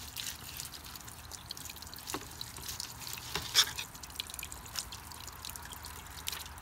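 Water dripping and trickling, with scattered light taps and scrapes, while fish are being cleaned and filleted.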